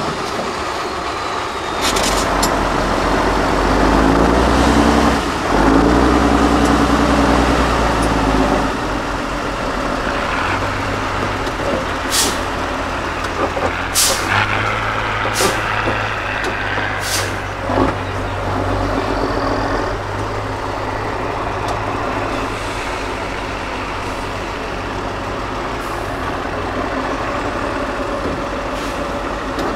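8x8 Tatra trial truck's diesel engine working hard under load as the truck crawls up a steep slope. It is louder in the first third, then runs on steadily. Several short sharp hisses come near the middle.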